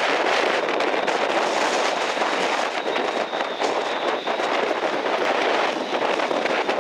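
Strong sea wind and breaking surf making a steady, dense rush, with crackling where gusts buffet the microphone.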